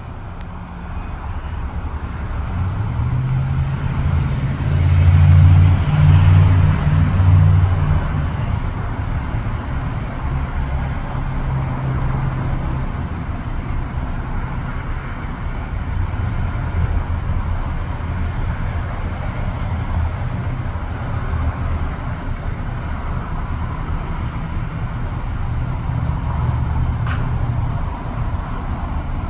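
Low, steady rumble of road traffic with engine hum, swelling loudest about four to eight seconds in as vehicles pass.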